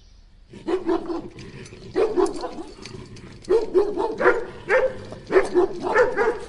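Dog barking in several short runs of quick barks, with pauses between them.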